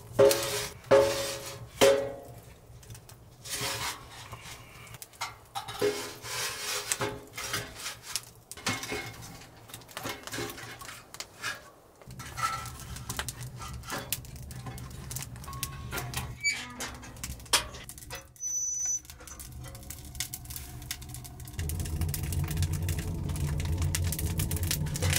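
Metal camp cookware and utensils being handled: irregular clinks, knocks and scrapes, with a few short ringing tones near the start. A steady low hum comes in near the end.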